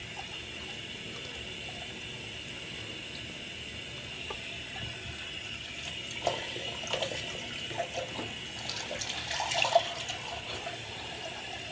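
Bathroom sink tap running steadily, with splashing and small knocks from about six seconds in as she washes her face.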